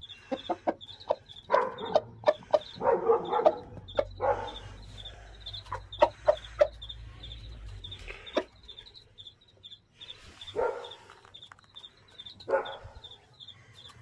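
Aseel rooster clucking in short low bursts while pecking grain from a plate, its beak tapping sharply on the dish many times. A faint high chirping repeats evenly behind it.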